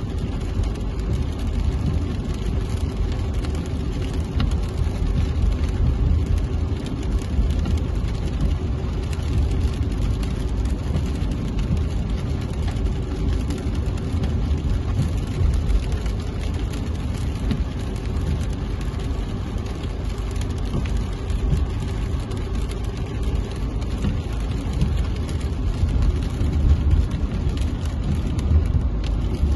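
Steady low rumble heard inside a car driving on rain-wet roads: engine and tyre noise with a hiss of rain and road spray.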